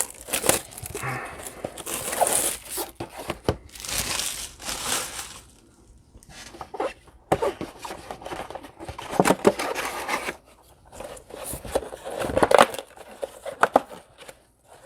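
Packaging of a hobby box of trading cards being torn open: crinkling and tearing of wrapping in several irregular rustling bursts with short pauses between them.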